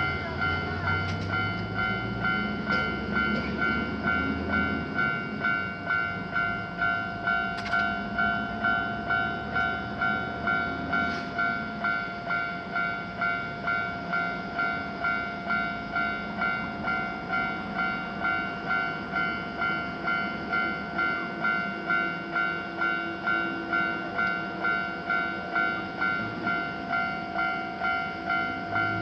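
Japanese railroad crossing's electronic warning bell ringing steadily, about one and a half strokes a second. A low rumble sounds under it for the first few seconds.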